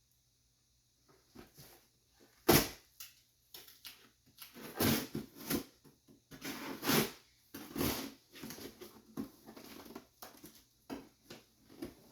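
A parcel being opened by hand: a sharp knock about two and a half seconds in, then irregular rustling and tearing of packaging.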